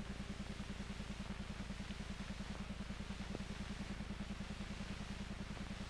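Steady low hum with a fast, even flutter of about a dozen pulses a second over faint hiss: the background noise of an old film's soundtrack as it plays between lines of narration, with one faint click about three and a half seconds in.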